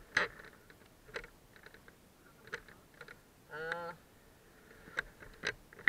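Scattered light clicks and taps from a hand handling a motorcycle's metal skid plate (sump guard) with the engine off. A short vocal sound comes a little past halfway.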